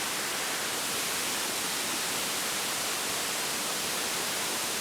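Waterfall pouring, a steady even rush of falling water.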